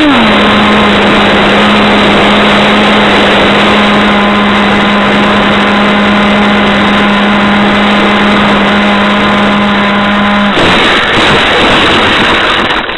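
Onboard sound of a radio-controlled model F-18 in flight, heard through a small onboard camera's microphone: loud rushing airflow over a steady motor hum, which settles to a lower pitch just after the start. The hum stops about ten and a half seconds in as the motor is cut, the rushing goes on during the glide down, and it ends abruptly near the end as the plane comes to rest in the grass.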